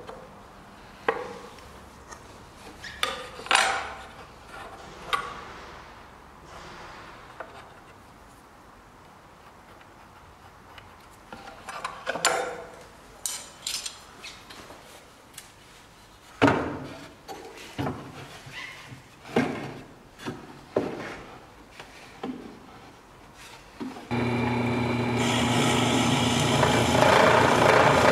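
Scattered taps and knocks of tools and wood being handled, then near the end a benchtop drill press starts and runs steadily, its motor humming as the bit bores into a pine board.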